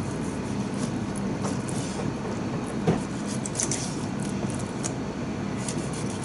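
Kitchen knife cutting skate wing on a plastic cutting board, slicing easily through the soft cartilage, with light ticks and one sharp knock of the blade on the board about three seconds in. A steady low mechanical hum underneath.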